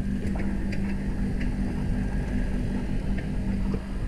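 Folding bicycle rolling along sidewalk paving: a steady rumble with a low hum and scattered light rattling ticks.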